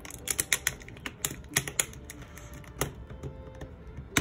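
Hands handling an open spiral-bound paper planner: irregular quick clicks and taps of fingernails against the pages and the metal coil binding, along with light paper handling, as a small pad is slipped in between the pages.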